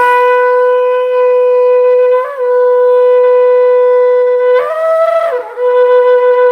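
Shofar blown in a long, loud held note, with a brief waver a little after two seconds in. About four and a half seconds in it jumps up to a higher note for nearly a second, then drops back to the first note.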